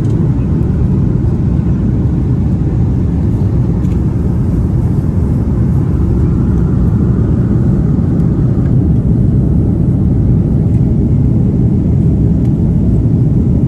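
Steady low rumble of cabin noise inside an Airbus A330-200 airliner: engine and airflow noise heard from a seat in the main cabin.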